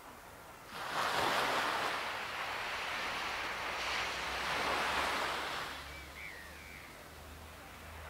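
An ocean wave surges in about a second in, washes loudly for several seconds, then draws back and fades. A few short bird chirps sound near the end.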